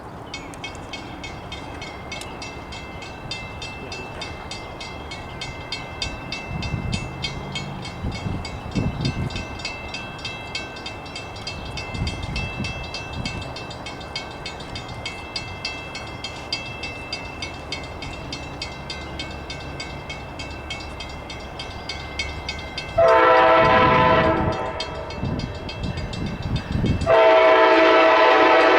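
A train moving through the station with a steady rumble and rapid, regular clicking, then two long blasts of a locomotive's multi-tone horn, the first about four-fifths of the way in and the second near the end.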